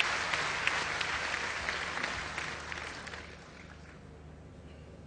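Large audience applauding, the applause fading away over about three and a half seconds.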